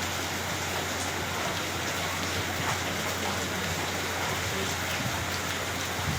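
Heavy rain falling and splashing on surfaces: a steady, even hiss, with a low steady hum underneath.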